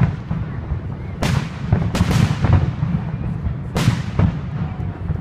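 Aerial fireworks shells bursting: a series of sharp booms with echoing tails over a steady low rumble. There is one at the start and another about a second in, two in quick succession around two seconds, and another near four seconds.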